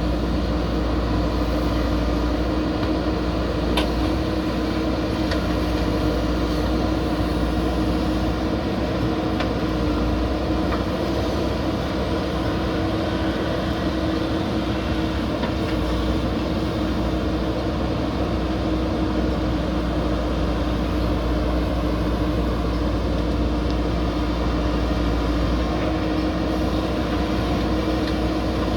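A backhoe loader's diesel engine running steadily under work, a continuous drone with a few faint clanks.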